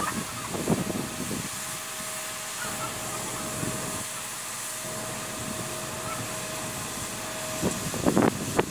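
Concrete mixer truck running while it discharges concrete down its chute: a steady hiss of engine and drum noise with a thin steady whine through the middle, and brief voices about a second in and near the end.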